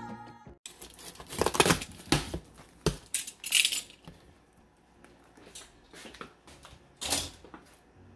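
Cardboard shipping box being handled and opened: separate knocks and scrapes of the cardboard lid and flaps, with paper rustling. A brief tail of background music at the start cuts off suddenly.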